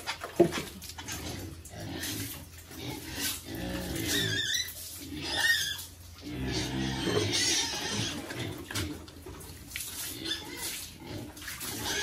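Pigs grunting, in several irregular bouts.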